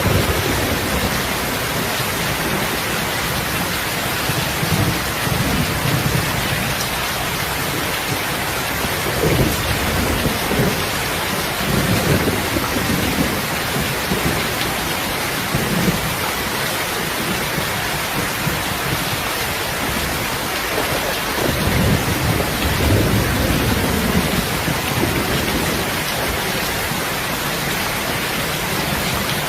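Steady rain falling, with low rumbles that swell and fade twice, about a sixth of the way in and again past two-thirds.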